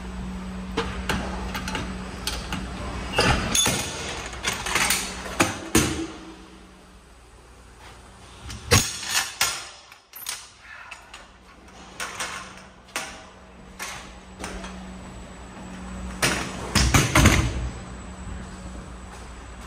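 Irregular knocks and bangs, like doors and gear being handled, over a steady low hum. The knocks come in several clusters, with a quieter gap near the middle.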